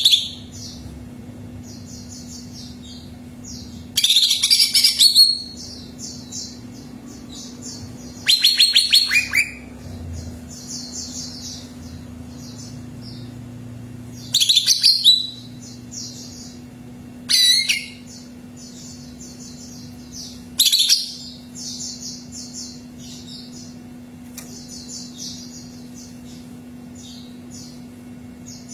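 Green leafbird (cucak ijo) singing: five loud, short phrases a few seconds apart, one a rapid trill, over continuous softer high chirping and twittering. A steady low hum runs underneath.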